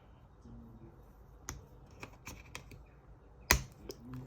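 Scattered small clicks and ticks of a pry tool working at a laptop's thin metal heat shield held down by adhesive, with one sharp snap about three and a half seconds in.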